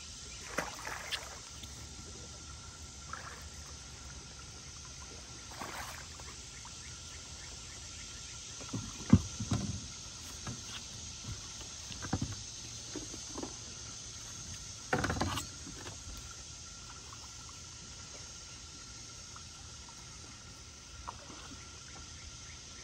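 A hooked catfish splashing at the surface beside a bass boat, with scattered knocks and splashes as it is handled at the boat's side. A sharp knock about nine seconds in is the loudest sound. A steady faint high hum runs underneath.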